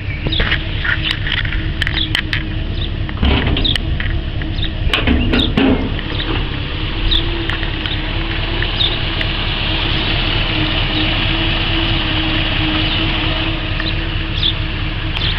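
1955 Dodge Red Ram 270 cu in V8 idling steadily, with short high chirps and scattered sharp clicks over it and two louder rushes of noise about three and five seconds in.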